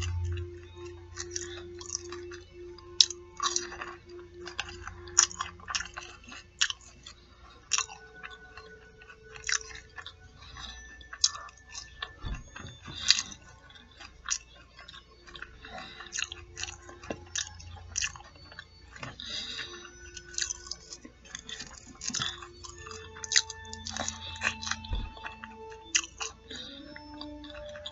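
Close-up chewing and biting of fish nuggets and fries, with many irregular sharp crunches.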